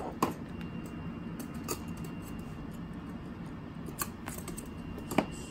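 A few scattered sharp clicks and taps, with a louder knock near the end, from a Shiba Inu puppy scrambling on a wooden floor and snapping at a plush toy.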